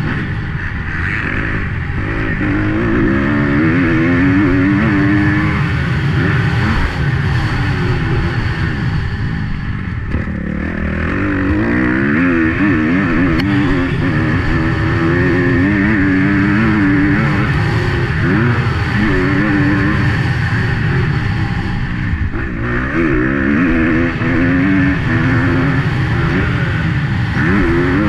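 250 cc four-stroke motocross bike engine being raced hard, its revs repeatedly rising and falling as the rider works the throttle and gears over the track. The engine drops off briefly about ten seconds in, then picks back up.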